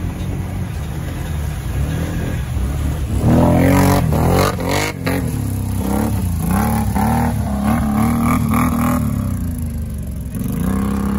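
ATV engine revving hard as its mud tyres spin through water and mud. The pitch climbs from about three seconds in, then rises and falls several times in quick blips before settling into a steady run near the end.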